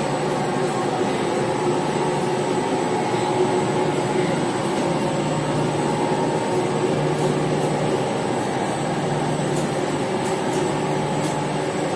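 Commercial laundry machines running, tumble dryers and washer-extractors giving a steady, even mechanical hum with a low drone.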